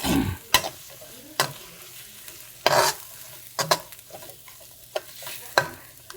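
Spatula stirring and scraping a thick onion and spice masala in a wok of hot oil, with a low sizzle underneath; the scrapes come irregularly, several times over the few seconds.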